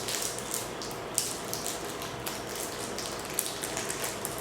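Plastic toy packaging crinkling and crackling as it is handled and torn open, in a quick irregular run of small crackles.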